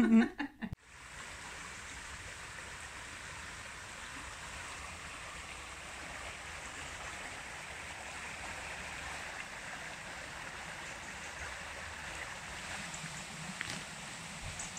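Shallow river water running over a stony bed: a steady, even rushing.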